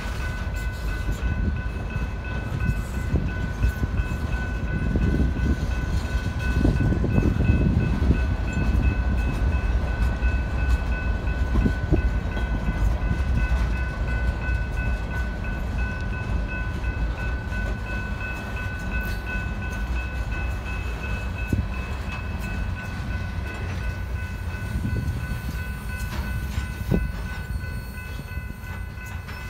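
Freight train of open-top hopper cars rolling past: a steady low rumble of steel wheels on rail, swelling for a few seconds early on, with a few sharp clanks. A grade-crossing signal bell rings steadily over it.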